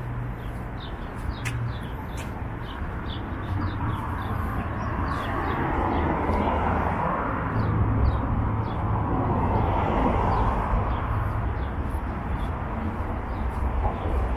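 City street sound: a steady traffic rumble that swells through the middle as vehicles pass, with small birds chirping over it again and again.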